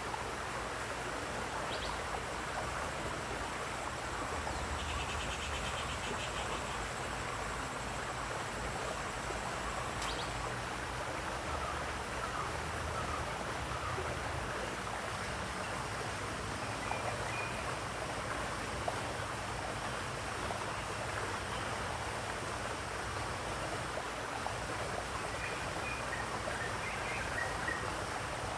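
Steady rush of flowing, splashing water, with a bird giving a short rapid trill about five seconds in and a few brief chirps later on.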